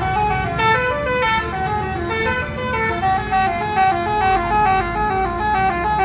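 Tour bus's 'basuri' musical air horn playing a quick tune of short notes stepping up and down in pitch, loud and without a break.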